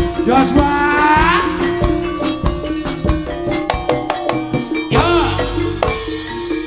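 Live jaranan gamelan music: drums strike a quick, steady rhythm over ringing gongs and metal percussion, with rattling. A high pitched melody line swoops upward about a second in and again around five seconds.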